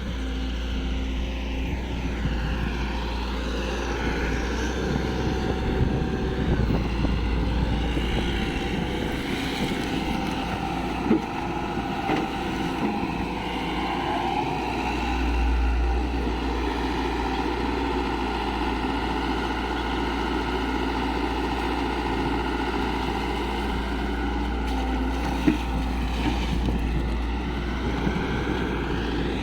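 Heavy excavator's diesel engine running steadily, its pitch rising and falling near the start and the end as the revs change under hydraulic load. Two short sharp knocks are heard, one in the middle and one later.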